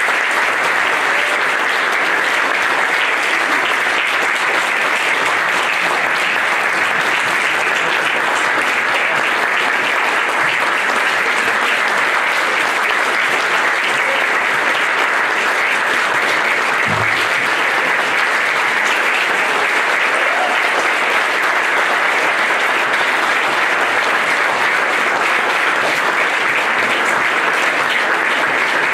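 Audience applauding steadily, with a brief low thump about seventeen seconds in.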